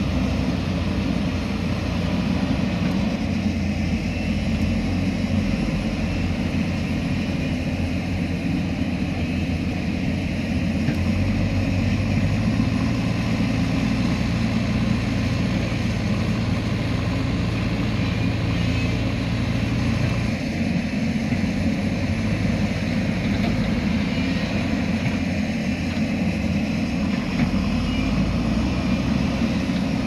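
Diesel engines of earthmoving machines, a JCB backhoe loader and a crawler excavator, running under load with a steady hum; the engine note steps up about eleven seconds in and drops back about twenty seconds in.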